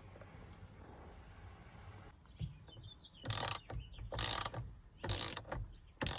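Socket ratchet clicking in repeated short strokes, about one a second, starting about three seconds in, as it turns out the steering-wheel centre bolt.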